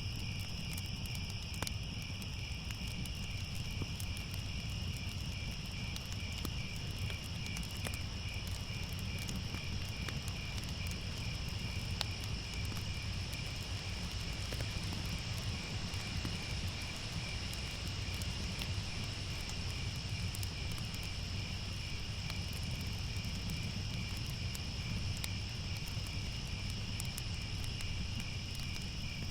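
Crickets chirping steadily in a dense, continuous chorus over a low rumble, with faint scattered crackles.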